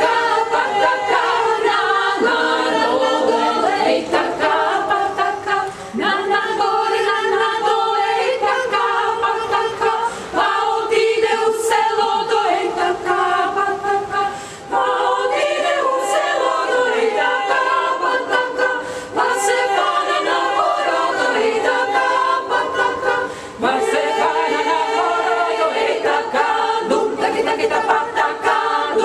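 Women's choir singing a cappella, phrase after phrase, with brief breaks between phrases.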